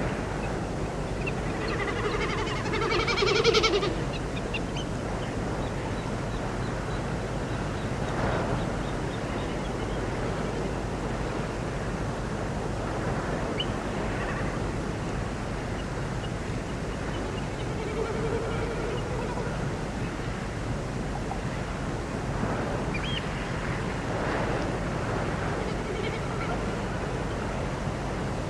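Outdoor morning ambience: a steady rushing background like wind or distant surf, with occasional animal or bird calls, the loudest and longest about three seconds in.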